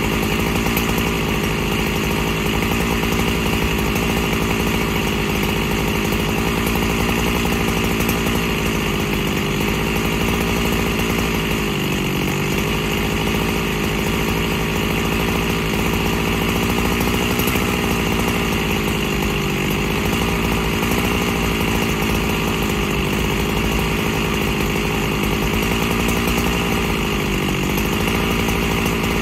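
Husqvarna 365 Special two-stroke chainsaw idling steadily, its idle speed dipping slightly a few times.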